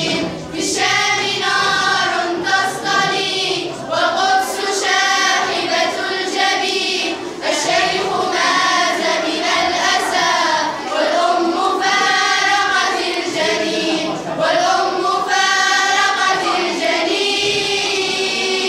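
A choir of teenage girls singing an Arabic nasheed together, in sustained phrases with short breaks between them.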